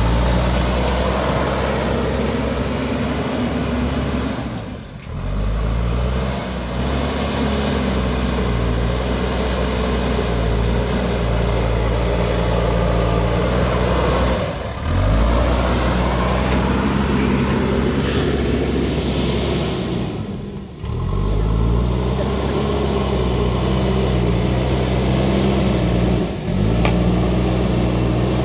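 Diesel engine of a JCB backhoe loader running under load while it levels soil, its engine speed stepping up and down as the machine works.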